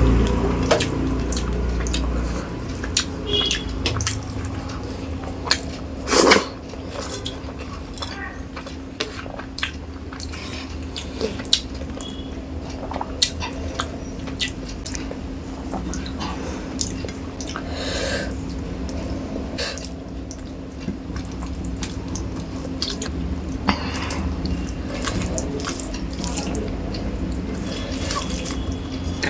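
Close-miked eating sounds: wet chewing, lip smacks and mouth clicks at irregular intervals while rice and fish curry are eaten, with a louder cluster of smacks about six seconds in. A steady low hum runs underneath.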